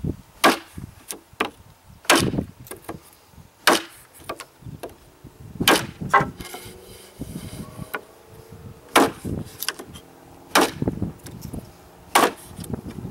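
A blade chopping into 2x2 lumber: sharp wooden chops, the heaviest about every one and a half seconds, with lighter knocks between and a short pause about halfway through.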